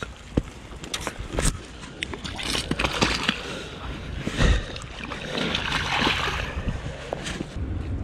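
Water splashing in the shallows at a river's edge as a coho salmon is released, in two bursts, about two and a half seconds in and again around five and a half seconds in. Scattered sharp knocks and clicks of gravel run through it.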